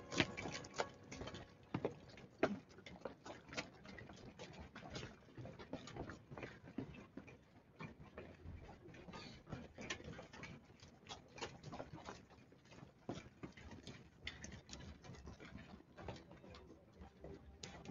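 Rapid, irregular light clicking and tapping, several clicks a second with no steady beat.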